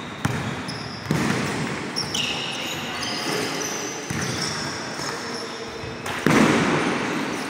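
Basketball thudding on a hard gym floor during play, several sharp bounces echoing in a large hall, with a few short high sneaker squeaks. A louder, noisier burst comes about six seconds in as a shot goes up at the rim.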